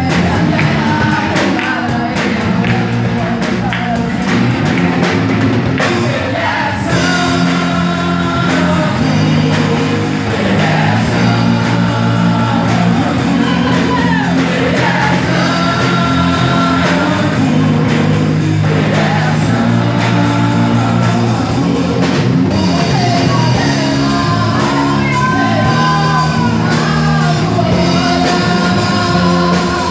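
Worship band playing a rock-style song, with sung vocals over guitar, bass and drum kit.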